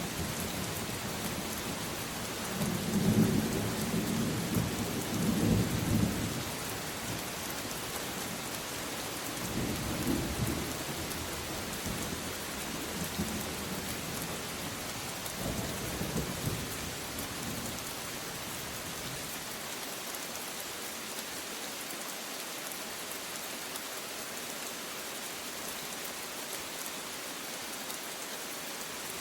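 Steady heavy rain with thunder rumbling low several times in the first half. The thunder dies away, leaving only the rain's even hiss.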